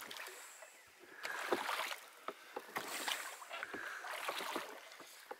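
Oars of a small rowed dinghy pulling through calm water: three strokes, each with a swish and splash of water, about a second and a half apart. Light clicks and knocks run between them.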